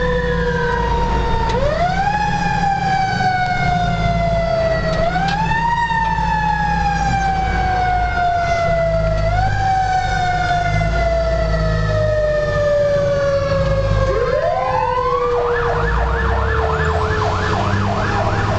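Emergency vehicle sirens heard from inside a fire engine's cab over the low rumble of its engine: a wail that rises quickly and falls slowly, repeated about every four seconds, switching near the end to a fast yelp.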